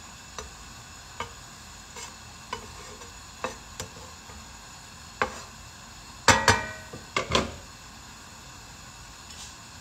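Metal tongs clacking against a frying pan as food is turned: about a dozen sharp, irregular knocks, the loudest bunched about six to seven seconds in with a brief metallic ring. A faint steady sizzle of frying runs beneath.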